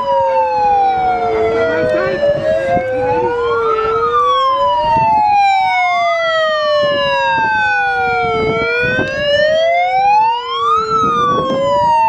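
Two megaphone sirens wailing at once, loud. Each tone sweeps slowly up and down over a few seconds, and the two rising and falling tones cross each other.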